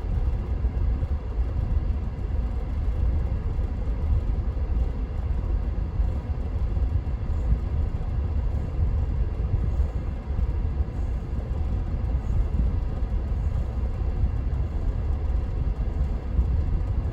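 1999 Lexus RX 300's 3.0-litre V6 idling in park, a steady low rumble with unsteady, bouncing revs: cylinder 6 is misfiring, which the owner puts down to a bad ignition coil.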